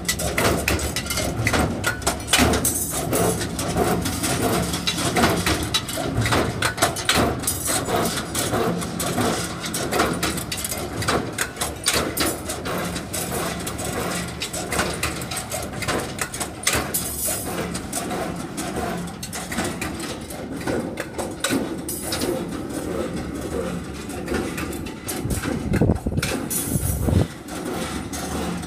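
CNC rebar stirrup bending machine running, feeding steel wire through its straightening rollers: continuous clattering and knocking of metal over a motor hum that comes and goes.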